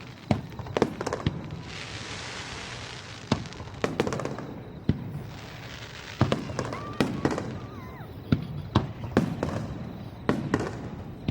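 Aerial fireworks shells bursting in a rapid, irregular series of sharp bangs. Stretches of hissing crackle from glittering effects come about two seconds in and again around five seconds.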